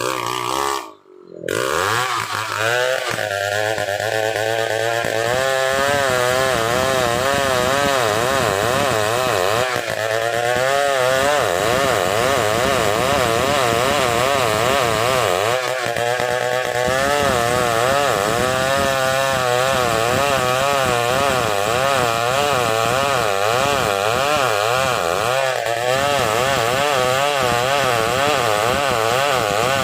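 Stihl 070 two-stroke chainsaw running hard under load as it cuts through a large log, its engine pitch wavering up and down continuously. There is a brief drop in sound about a second in.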